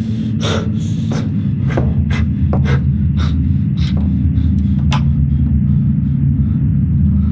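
A loud, low droning rumble with steady pitched tones, the sound design of a horror film, under a run of short, sharp breaths that come every half second or so for the first five seconds, then fade.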